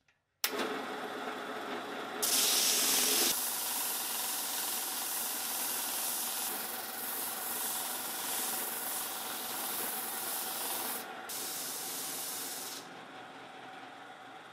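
Walnut gunstock being sanded on a drum sander: a steady rough hiss of abrasive on wood that starts abruptly, is loudest for about a second early in, and drops off near the end.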